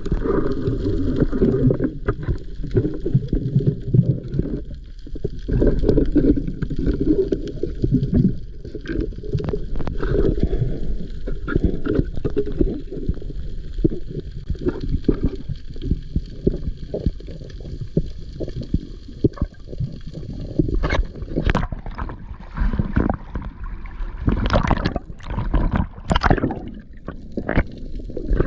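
Muffled underwater sound picked up by a camera in its waterproof housing: a steady low rumble of moving water, with many scattered clicks and knocks, sharper and more frequent in the last several seconds.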